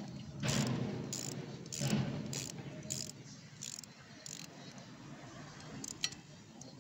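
Hand tool working the coolant drain bolt on a KTM RC 390 engine: light metal clicks and scraping recurring about every half second, fainter after the first few seconds.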